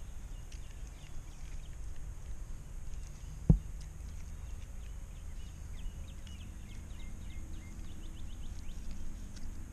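Steady wind rumble on the microphone, with small birds chirping in the background and one sharp knock about three and a half seconds in.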